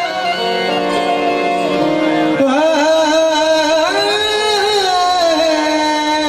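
Live qawwali: harmonium playing held notes while a male singer sings long, wavering, ornamented phrases over it; the voice comes in more strongly about two and a half seconds in.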